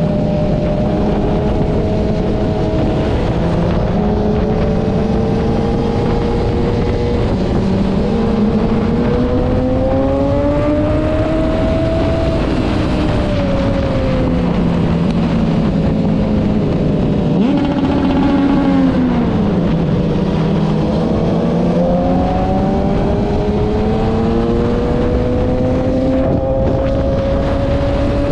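Sport motorcycle engine heard from the rider's seat under wind rush, its pitch climbing slowly as it pulls, dropping about two-thirds of the way through as it slows, then climbing again.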